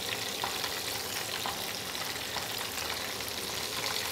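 Oats-and-breadcrumb-coated chicken pieces deep-frying in a pan of hot oil: a steady sizzle with scattered small crackles.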